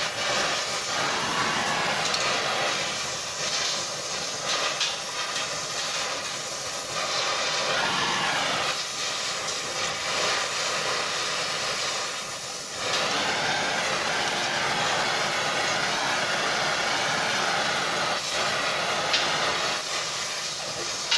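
Cutting torch flame hissing steadily as it heats a quarter-inch round steel bar, with a few light clinks of metal a few seconds in.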